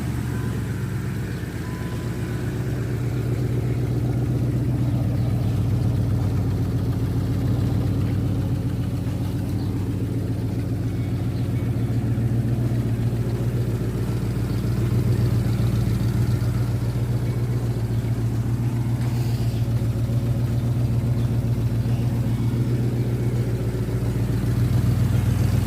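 BMW X5 engine idling steadily through its freshly repaired exhaust, shortly after start-up, with an even low note from the exhaust.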